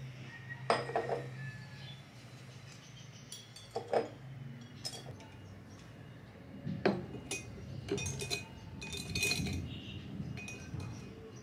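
A glass vase and other small objects being handled and set down on a tabletop: scattered light clinks and knocks, a few with a short ring, and a busier run of small clicks and taps near the end.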